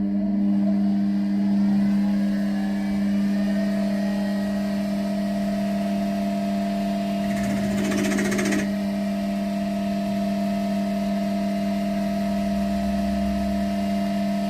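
Metal lathe running under its electric motor, a loud steady hum. About seven and a half seconds in comes a brief scraping burst lasting about a second.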